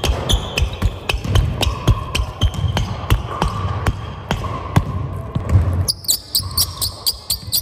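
Rubber outsoles of New Balance basketball shoes squeaking on a court in several drawn-out squeaks, over repeated sharp knocks of a basketball bouncing and footfalls. Near the end the squeaks give way to a quicker run of high ticks.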